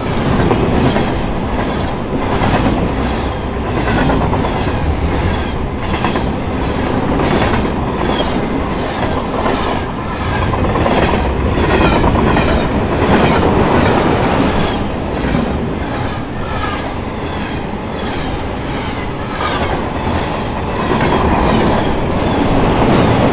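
Train rolling along the track, its wheels clacking over rail joints in a steady rhythm about twice a second over a continuous rumble.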